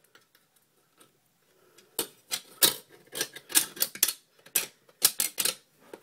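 A metal meter locking ring being worked around the rim of an electric meter and its socket: a run of irregular clicks and scrapes beginning about two seconds in.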